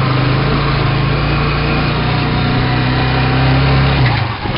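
Motorcycle engine of a tricycle running under way, heard from inside the sidecar as a steady drone. Its pitch climbs slightly, then falls away about four seconds in.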